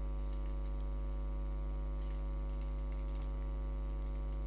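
Steady electrical mains hum: a low drone with a stack of even overtones and a faint high whine. A few faint clicks are scattered through it.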